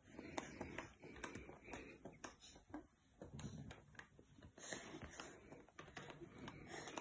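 A baby drinking milky tea from a glass held to his mouth: faint sipping with many small irregular clicks.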